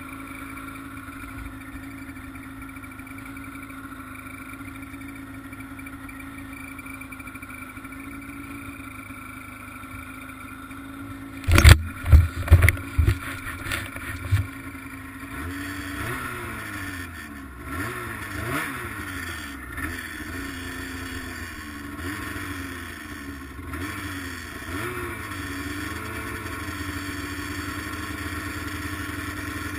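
Arctic Cat ZR800 snowmobile's two-stroke engine running steadily, with a few loud knocks about twelve seconds in. From about halfway the revs rise and fall again and again. The sled still has running problems, which the owner suspects come from bad fuel injectors.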